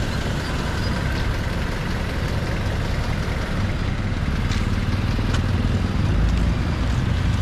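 A motor vehicle's engine idling close by, a steady low rumble.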